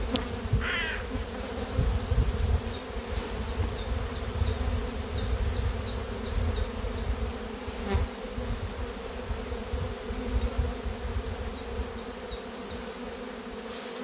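A honey bee colony buzzing in a steady, many-voiced drone around an opened hive as its frames are shaken out. One sharp knock comes about eight seconds in.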